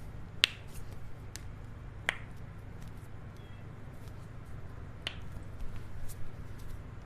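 Joints being cracked: sharp, isolated pops, three loud ones a few seconds apart with fainter clicks between them.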